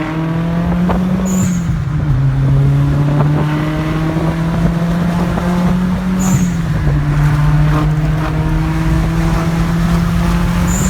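Volkswagen GLI's turbocharged 2.0-litre four-cylinder engine under hard acceleration on freshly fitted ignition coils and spark plugs. Its pitch climbs steadily through each gear and drops sharply at each upshift: about a second in, near the middle, and at the end.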